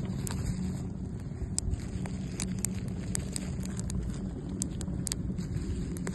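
Wood campfire crackling, with scattered sharp pops and ticks over a steady low rumble.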